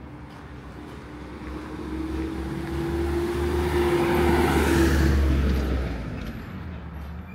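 A motor vehicle passing by on the street, growing louder to its loudest about four to five seconds in and then fading, with engine hum under tyre noise.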